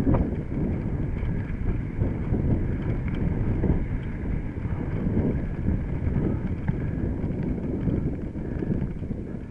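A mountain bike riding a rough dirt trail: a steady rumble of wind buffeting the microphone, with the bike's irregular rattling and knocking over the ground.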